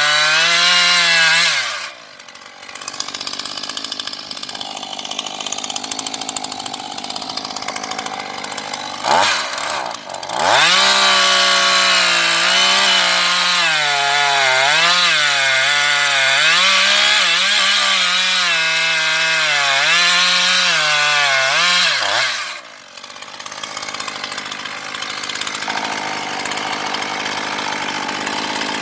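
Husqvarna 135 Mark II two-stroke chainsaw cutting wood at full throttle, its engine pitch dipping and recovering under the load of the cut. It drops back to a quieter, lower-revving run about two seconds in and again near the end, with a short rev in between.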